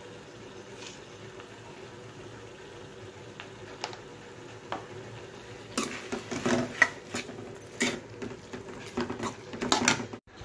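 A steel spoon stirring diced cucumber and tomato curry in a kadai on a gas stove, over a faint steady simmer. A few isolated clicks come early. From about six seconds in, the spoon scrapes and clacks against the pan in quick, irregular strokes.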